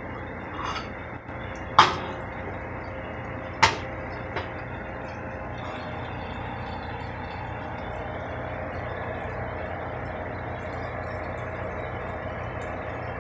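Minced garlic sizzling faintly in oil in a pot on a gas stove, a fine crackle from about six seconds on, over a steady hum. Two sharp knocks of cookware come about two seconds apart in the first four seconds.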